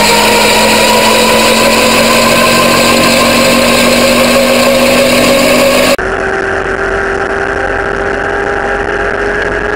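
A Monarch gyroplane's engine running, its note rising slowly as power builds. About six seconds in the sound cuts abruptly to a quieter recording of the same engine, still slowly rising.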